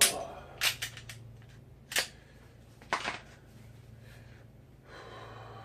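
Sharp mechanical clicks and clacks from a Glock 23 pistol being handled in dry-fire practice: a few separate clicks, with a pair close together about 0.7 s in and a double clack about 3 s in.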